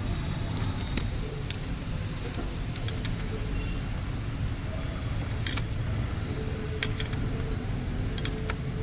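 Scattered sharp metallic clicks and clinks of hand tools on the engine as a 13 mm spanner works the timing-belt tensioner bolt, over a steady low hum.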